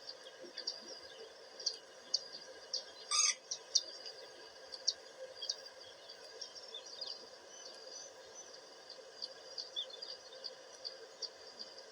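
Birds chirping, with many short high calls scattered throughout and one louder, fuller call about three seconds in.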